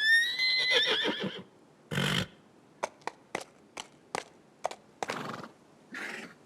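Cartoon unicorn whinnying for about a second and a half, then hooves clopping in scattered single steps, with a short loud huff about two seconds in and two breathy huffs near the end.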